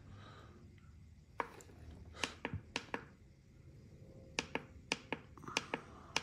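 About a dozen sharp, irregular clicks of the push buttons on a Polaris Sportsman ATV's digital gauge, pressed one after another to scroll through its options menu.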